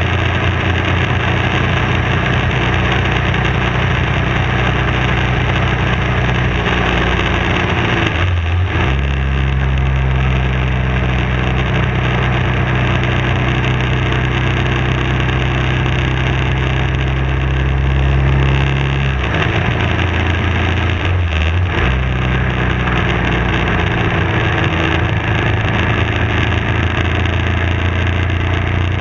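BMW F650 motorcycle engine running at steady road speed, heard from on the bike along with wind and road noise. The engine note breaks briefly about a third of the way in and runs at a lower pitch for about ten seconds, then breaks and rises again near two-thirds of the way through.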